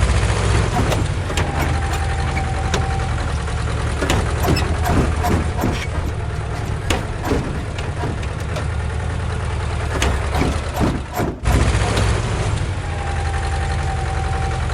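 A heavy engine idling, a steady low running sound with frequent clicks over it; it cuts off for a moment about eleven seconds in and starts again.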